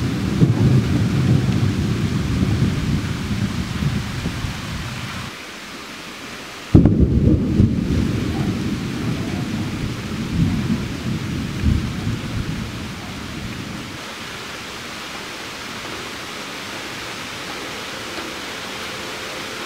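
Thunder rumbling over steady rain, with a sudden loud clap about seven seconds in that rolls on for several seconds. After that only the even hiss of rain remains.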